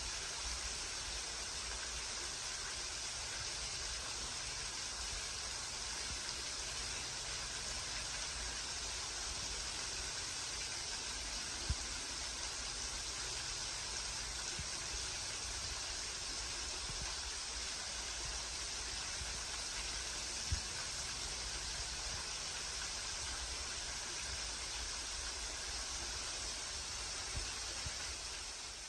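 Waterfall rushing steadily, an even hiss of falling water, with two brief sharp ticks partway through. It fades out at the very end.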